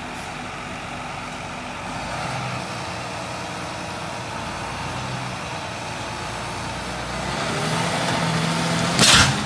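John Deere row-crop tractor's diesel engine running steadily as the tractor drives off, getting louder with a rising pitch from about seven and a half seconds in. Just after nine seconds there is a sudden, short, loud burst of noise.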